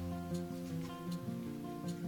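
Background instrumental music with held, sustained notes.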